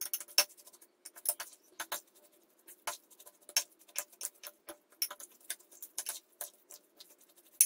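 Metal spoon stirring wet rice stuffing in a glass baking dish: irregular light clicks and taps of the spoon against the glass, about two or three a second.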